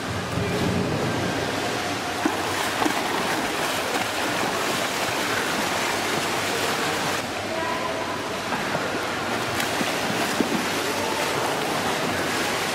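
Swimmers kicking through pool water, a steady rushing splash with a few sharper splashes now and then.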